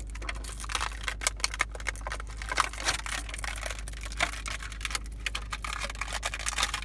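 Plastic toy packaging being handled and pried open by hand: rapid, irregular clicking and crackling of a plastic egg case.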